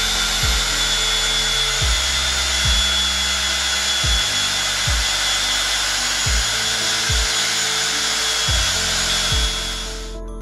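Cordless drill running steadily with a high whine as it drives the motorcycle lift's screw mechanism, then stops abruptly near the end. Background music with a steady beat plays underneath.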